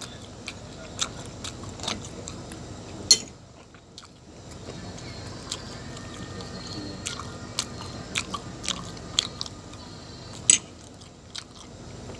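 Close-up chewing and mouth sounds of someone eating tough, chewy pizza, with a metal spoon clicking against the plate. The two sharpest clinks come about three seconds in and near the end.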